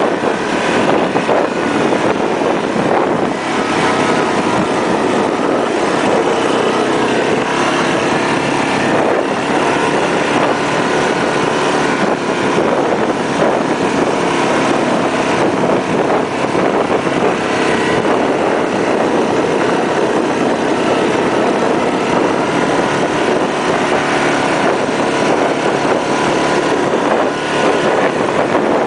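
Yamaha ATV engine running steadily while riding a rough dirt track, heard from on board, its note rising and falling a little with the throttle.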